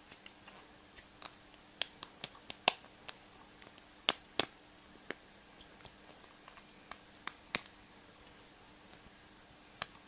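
Small hard plastic pieces clicking and tapping irregularly as they are handled, a few clicks sharper than the rest, over a faint steady hum.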